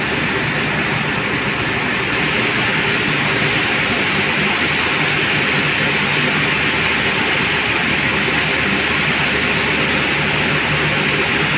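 Steady, loud machinery noise of a steel factory hall: an even hiss with a low hum underneath, unchanging throughout.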